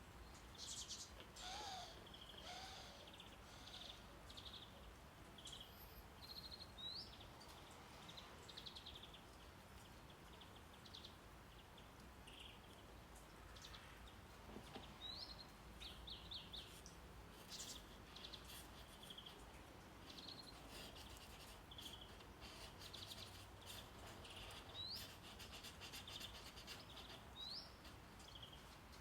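Faint birdsong, scattered short chirps, trills and a few quick upward whistles, over a low steady brown-noise hiss.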